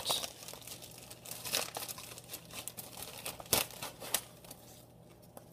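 Small clear plastic bags crinkling and crackling as they are handled, with a few sharper crackles, dying down near the end.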